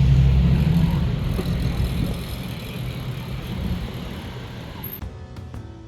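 A motor vehicle's engine running, its low rumble fading away over the first few seconds. Music begins near the end.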